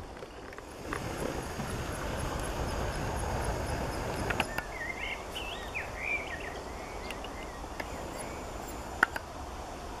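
Steady rural outdoor noise, louder in the first few seconds, with a small bird chirping a few quick warbling notes about halfway through and a couple of sharp clicks.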